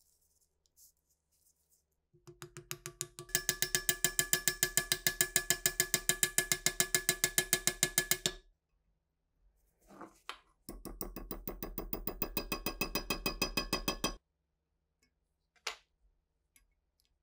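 Rapid, even metallic clicking, about eight clicks a second, ringing with a steady pitched tone, in two runs of several seconds each with a short gap between, then a couple of single taps near the end.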